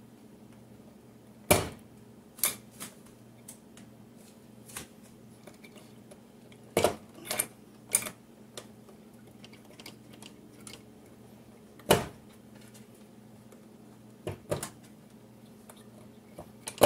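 Sharp clicks and snaps, about nine spread unevenly a second or several apart, as push-on wire connectors are pulled off the terminals of a GE stove's surface burner control switch, over a faint steady low hum.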